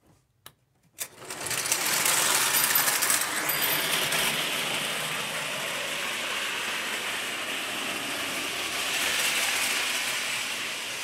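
Hafner M10000 clockwork toy train running on tinplate track. After a couple of faint clicks it starts off about a second in, its freshly cleaned and lubricated spring-wound motor whirring under a dense, steady metallic rattle of gears, wheels and tin cars.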